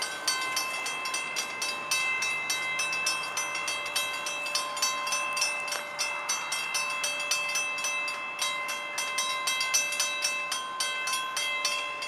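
Railroad grade-crossing warning bells ringing as the crossing gates lower: rapid clanging strikes, about five a second from more than one bell out of step, over a steady ring, signalling an approaching train.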